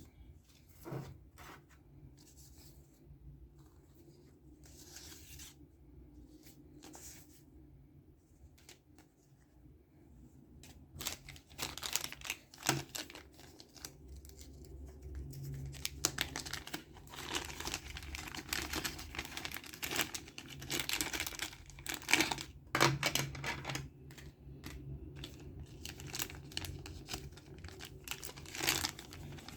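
Packaging of an RC car roof luggage rack being handled, torn and crinkled open by hand. It starts as faint, scattered rustles and clicks, then grows into busier, louder tearing and crinkling about a third of the way in.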